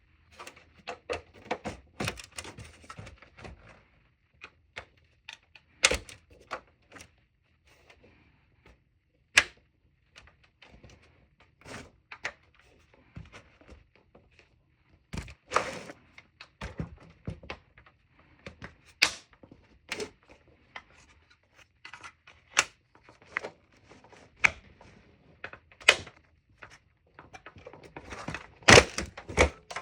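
Plastic clips on an original Xbox 360's outer case being pried and popped loose by hand: irregular clicks, snaps and knocks of hard plastic, the loudest near the end.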